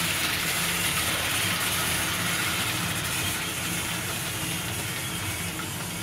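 Model train with a sound decoder running into a station: a steady hiss and low rumble from the locomotive's sound and its wheels on the track, slowly getting quieter.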